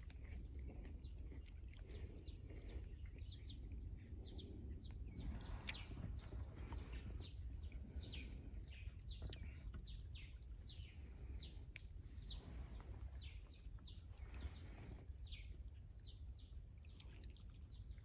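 Small birds chirping: short, high, falling notes repeating one after another from a few seconds in, over a low steady rumble.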